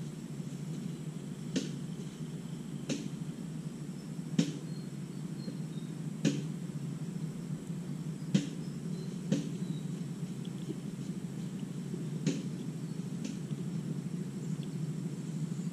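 Sharp pops and cracks, about eight, spread irregularly over the seconds, from snails grilling on a bamboo skewer over hot embers. A steady low hum runs underneath.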